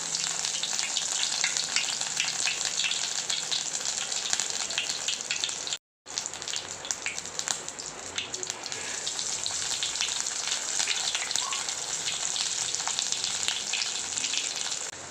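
Bread-crumb-coated Maggi noodle cheese balls deep-frying in hot oil: a steady sizzle full of small crackling pops. It is broken once by a split-second gap about six seconds in.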